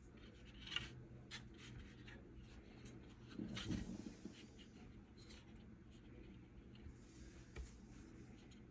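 Faint handling of a small plastic model chassis and its thin plastic support rods on paper: light clicks and scratchy rustles, with a louder rustle and bump about three and a half seconds in.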